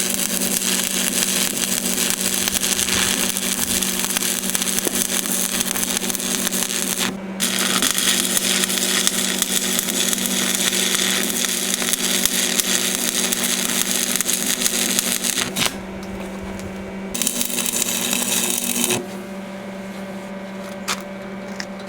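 Stick-welding arc crackling and sizzling steadily as a 7018 rod lays weld beads on the anvil's edges, over a steady electrical hum. The arc breaks off briefly about 7 seconds in and again around 16 seconds, and the sound drops in level for the last few seconds.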